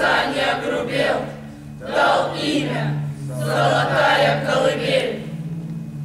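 Many voices chanting together in three loud bursts about a second apart, over a steady low drone. The chanting dies away in the last second.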